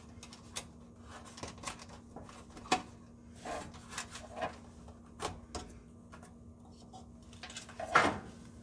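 Scattered small clicks and light knocks of plastic wire-harness connectors and wires being handled and pushed onto a range's clock control board, with a louder knock about 8 seconds in.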